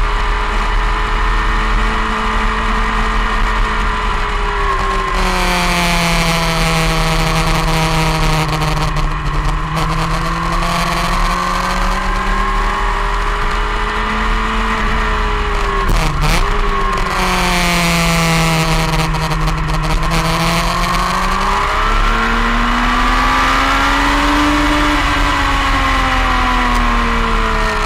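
Onboard sound of a motorcycle engine at speed on a race track, its pitch falling and rising several times with throttle and gears, with a brief sharp dip about sixteen seconds in. Wind rush over the camera grows louder in two stretches.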